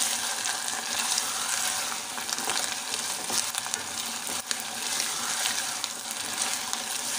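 Aloe vera halwa sizzling in ghee in a saucepan while a wooden spatula stirs and scrapes it, with many small crackles and clicks through a steady hiss. It is being roasted in ghee after the sugar's water has dried off.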